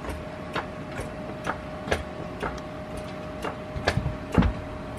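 Hydraulic floor jack being pumped under load, lifting a truck body off its frame: a regular click or clunk at each handle stroke, about two a second, the loudest near the end.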